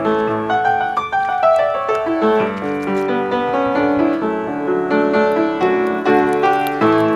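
Background piano music, a run of notes stepping downward about a second in.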